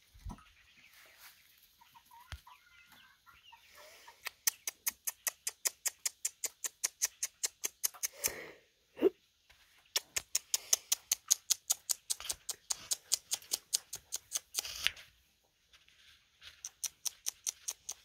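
Domestic hens in a coop giving a couple of short calls about eight to nine seconds in, over a rapid, regular clicking of about six ticks a second that runs in two long stretches.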